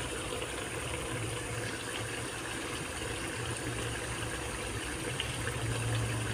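Beef mince and capsicum curry bubbling steadily in a wok as it simmers.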